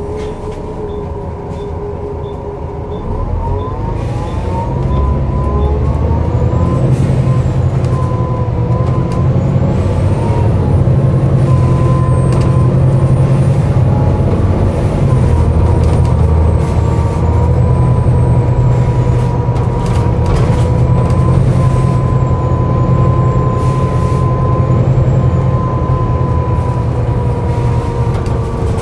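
Volvo B7TL double-decker bus's engine and transmission heard from on board: light ticking for the first few seconds, then the bus pulls away about three seconds in with a rising whine, and runs on under steady load. Through it sound two steady held tones, the groaning noise this bus makes.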